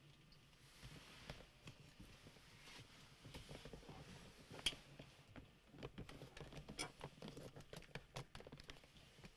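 Faint scattered clicks and rustling, growing denser in the second half, with one sharper click about four and a half seconds in.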